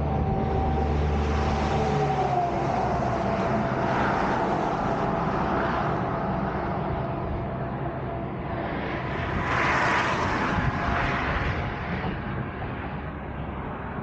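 Road traffic on the highway across the bridge: a steady low rumble of passing vehicles, with a faint tone that falls in pitch about two seconds in and a louder pass about ten seconds in.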